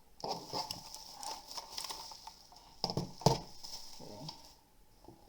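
Unboxing handling noise: packaging rustling and crinkling among irregular clicks and light knocks as the mechanical keyboard and its box are handled, with one louder knock about three seconds in.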